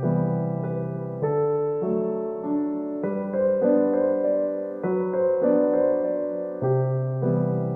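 Background music: a slow piano piece, chords changing about once a second.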